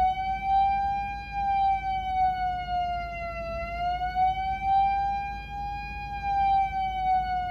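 Building fire alarm siren: one long continuous tone that slowly wavers in pitch, dipping once about halfway through. The alarm is going off because of a malfunction, not a fire.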